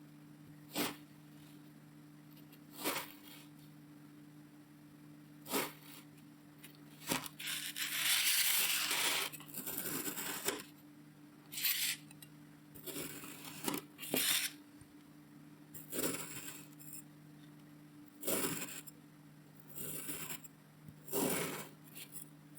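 Kinetic sand being cut and crushed: a series of short, separate crunchy strokes, with one longer, louder crumbling crush about eight seconds in.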